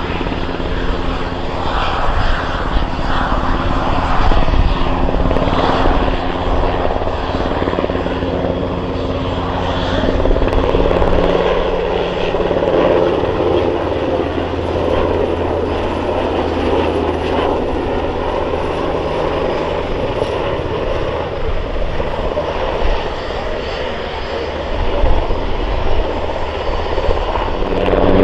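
German Army NH90 TTH helicopter flying close by. Its rotor and twin turboshaft engines run continuously, the sound growing and easing as it moves past.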